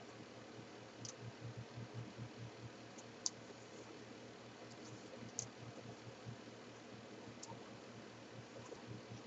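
Small cardboard jigsaw puzzle pieces being handled and set down on a table, giving faint, sharp clicks every couple of seconds over a low hum.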